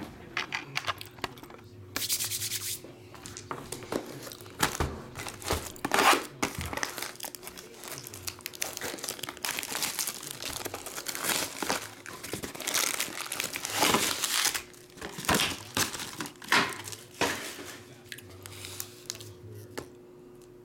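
Clear plastic shrink-wrap being torn and crinkled off a cardboard booster box, then foil-wrapped booster packs rustling as they are handled and stacked, in irregular bursts of crinkling.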